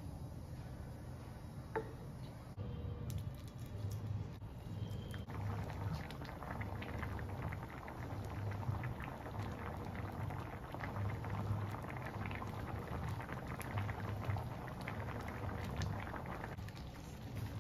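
Thick tteokbokki sauce simmering in a frying pan, bubbling and popping in many small crackles. The bubbling grows busier about five seconds in, over a low steady rumble.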